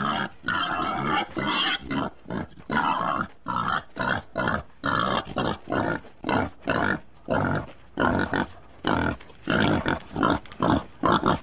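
Wild boar grunting over and over, short rough grunts coming about twice a second.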